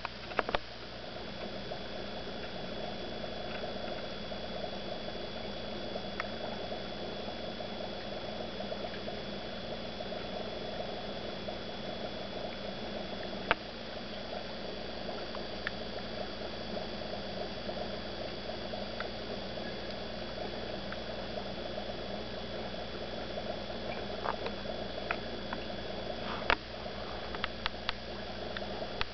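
Aquarium water bubbling and trickling in a steady patter, with a faint steady high whine. A few sharp clicks break in, a loud one about halfway through and several near the end.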